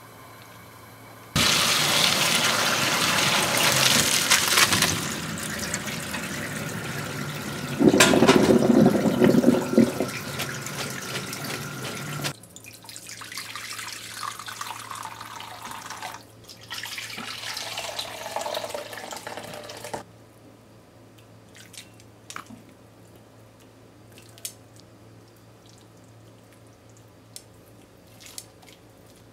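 A heavy rush of water pouring into a sink for about ten seconds, typical of boiled noodles being drained. Then a quieter stream of liquid pours into a ceramic ramen bowl in two pours. Near the end there are a few faint clicks of chopsticks against the bowls as the noodles are placed.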